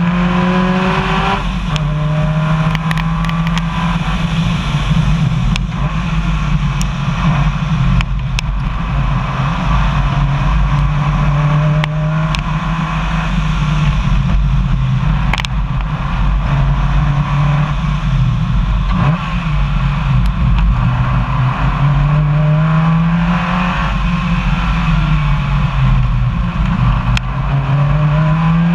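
Rally car engine under hard acceleration on a gravel stage, its revs climbing and dropping again and again through gear changes. Underneath runs a steady rush of tyres on gravel, with a few sharp clicks.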